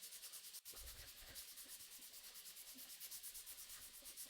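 Faint, quick, even back-and-forth strokes of sandpaper being rubbed by hand along a steel knife blade, working it up through the grits.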